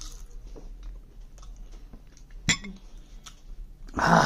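A man drinking water from a glass, with quiet swallows and small mouth clicks. A single sharp knock comes about two and a half seconds in, then a loud breathy gasp near the end.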